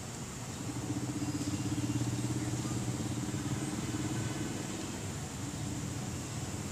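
A motor running with a steady low hum, swelling about a second in and easing off after about four seconds.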